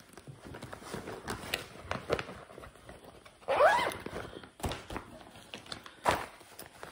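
A clear vinyl mesh zip project bag being handled as fabric is stuffed into it: plastic rustling and crinkling with scattered taps and light thunks. A brief voiced sound comes about halfway through.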